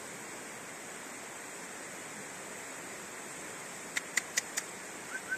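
Steady rush of a rain-swollen mountain river in flood, fast turbulent water. About four seconds in come four quick sharp clicks in a row, then two brief high chirps near the end.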